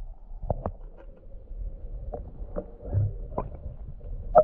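Water lapping against an inflatable stand-up paddleboard, heard muffled through an underwater camera housing, with about six short sharp knocks, the loudest near the end.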